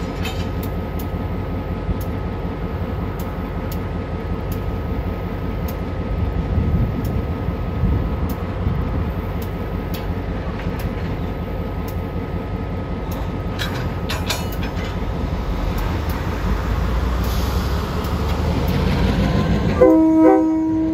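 Diesel-electric road locomotive running steadily, the engine building louder over the last few seconds as it begins to move. About a second before the end it sounds a short horn blast.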